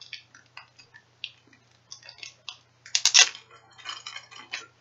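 Clear plastic bag crinkling and rustling in the hands as it is opened, with scattered small clicks. The crackle is loudest for a moment about three seconds in.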